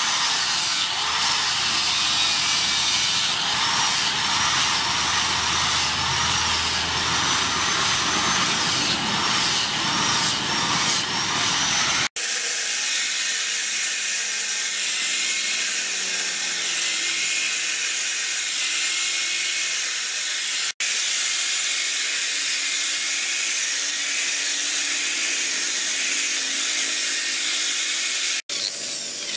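Handheld grinder fitted with a sanding disc sanding a wooden knife handle: a steady grinding hiss with a motor whine that rises and falls as the disc is pressed into the wood. The sound cuts out briefly three times.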